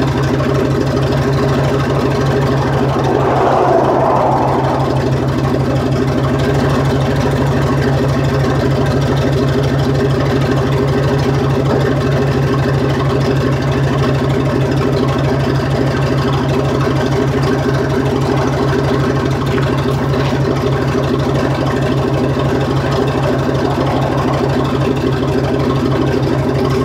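2001 GMC 3500 pickup's engine idling steadily through its exhaust, warming up after a cold start.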